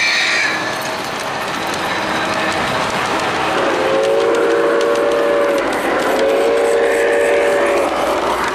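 An O-gauge model steam locomotive's onboard sound system blowing its chime whistle: two long blasts of about two seconds each, a short gap between them, over the steady rumble of model trains running on three-rail track.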